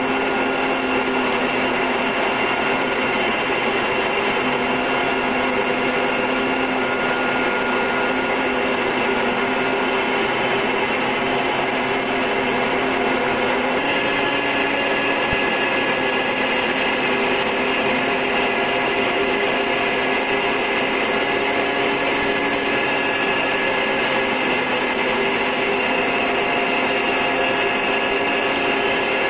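Short Tucano's Garrett TPE331 turboprop engine and propeller droning steadily in flight. Its tones shift slightly about halfway through.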